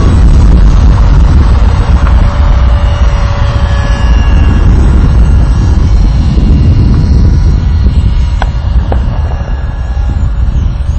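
Heavy wind buffeting on the microphone, with the faint whine of an electric RC glider's brushless outrunner motor and propeller drifting in pitch as the plane flies.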